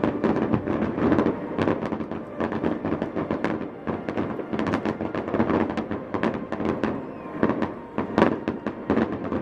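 Fireworks going off in a rapid, continuous crackle of many sharp pops and bangs, several a second.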